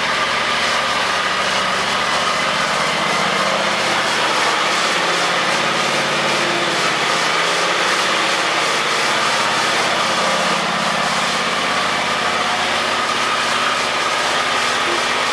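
John Deere X320 riding mower's 22 hp Kawasaki engine running steadily while the tractor is driven slowly around inside a garage.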